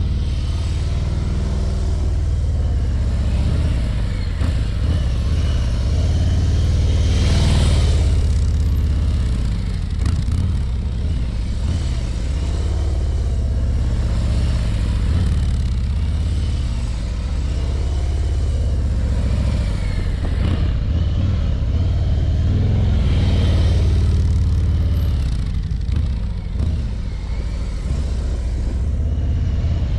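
Harley-Davidson Ultra Limited's V-twin engine running at low speed during slow riding, a steady low sound that grows louder twice, about a quarter and about three quarters of the way through.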